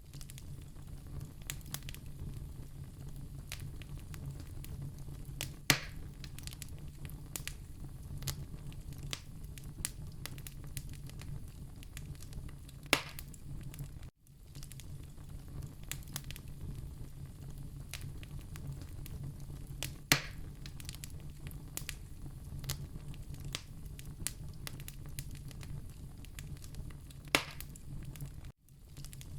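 Wood fire crackling in a fireplace: a steady low rumble with many small crackles, and four sharp louder pops roughly seven seconds apart. The sound drops out for a split second twice.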